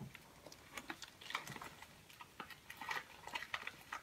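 Faint, irregular clicks and crinkles of a plastic bag of wax melts being handled and closed.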